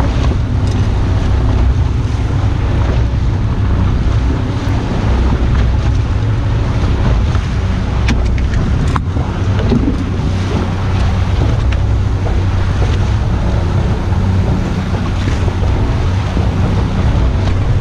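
Wind buffeting the microphone over the steady drone of a 90 hp Evinrude E-TEC outboard at trolling speed and the rush of the boat's wake, with no change in pace throughout.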